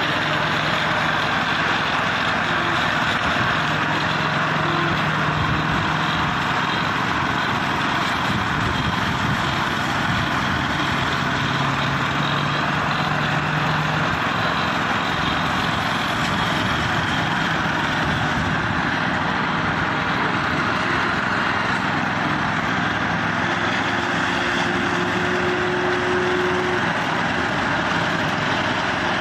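Diesel engine of a self-loading concrete mixer truck running steadily while its rotating drum discharges concrete down the chute.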